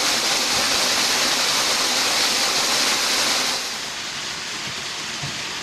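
Steady rush of a waterfall's falling water, a hissing roar with no breaks. Just past halfway it drops to a softer, duller rush.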